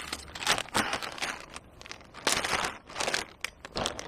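Clear plastic zip-lock bag of groundbait crinkling and rustling in irregular bursts as it is handled.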